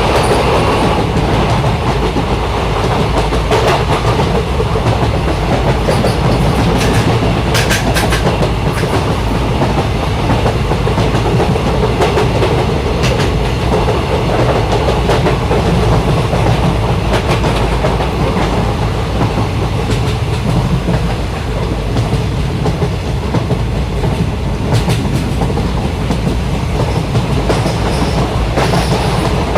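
A passenger train running along the track, heard from a window seat inside a coach: a steady, loud rumble of wheels on rails with a few sharp clicks now and then.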